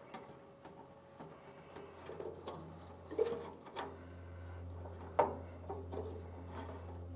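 Short plastic clicks and knocks of a zip tie being threaded and pulled tight against a sheet-metal panel, with two sharper knocks. A low steady hum comes in about halfway through.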